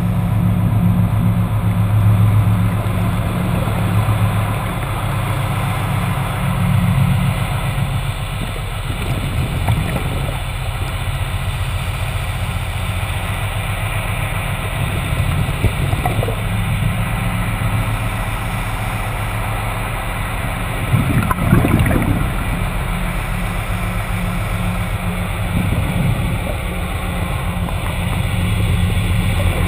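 Underwater recording with a steady low mechanical hum carried through the water. Several short rushes of scuba exhaust bubbles break in, the loudest about two-thirds of the way through.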